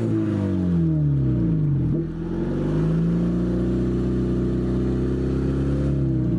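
Honda Civic EK's engine revving with its exhaust fallen off. The pitch sinks over the first two seconds, then climbs again and holds high.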